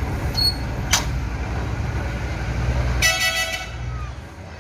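Small electric concrete mixer running with a steady low rumble, a sharp metallic knock about a second in. A vehicle horn gives a short toot about three seconds in.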